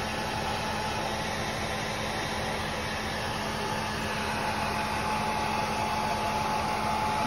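Small handheld hair dryer running steadily: a constant rush of blown air with a thin, steady motor whine.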